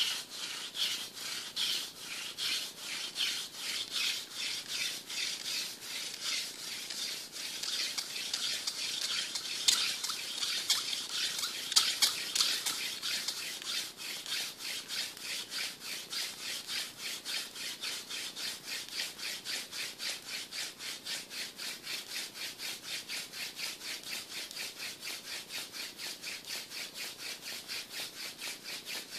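Hand drill friction fire: a thin cattail spindle spun back and forth between the palms, its tip grinding in a queen palm seed-pod branch fireboard. It makes an even, rhythmic rubbing at about three or four strokes a second, loudest about halfway through.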